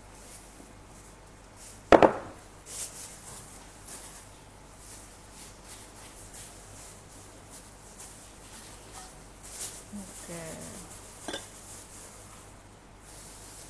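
A single sharp knock of dishware about two seconds in, as a plate or glass bowl is struck or set down. After it, faint rustling and light ticks as a plastic-gloved hand arranges lettuce and shredded cabbage on a ceramic plate.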